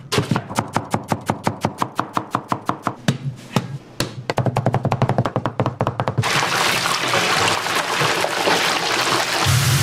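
Kitchen knife chopping on a cutting board in quick, even strokes, about five a second, then faster for a couple of seconds. About six seconds in, a loud steady sizzle of food frying in a hot wok takes over.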